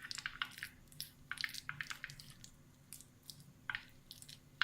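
A spoon stirring a sticky gulkand and chopped paan-leaf filling in a bowl, giving a faint, irregular run of short wet squishes and clicks.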